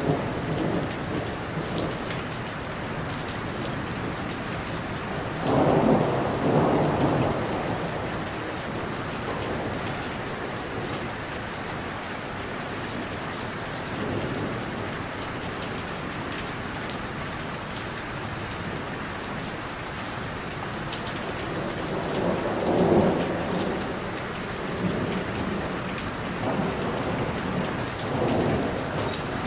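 Thunderstorm: steady rain falling, with thunder rumbling loudest about six seconds in and again a little after twenty seconds, and a fainter roll near the end.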